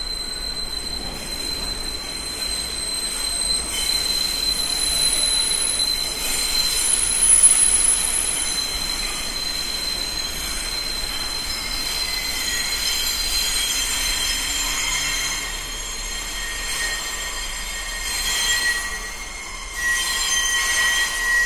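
New York City subway train braking, its wheels squealing against the rails in several sustained high tones over a steady rumble. About halfway through, a lower squeal takes over and holds.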